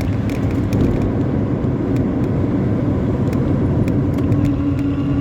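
Intercity bus with a 'knalpot ngorok' modified exhaust running at highway speed: a loud, steady low growl from the exhaust and diesel engine, mixed with road noise.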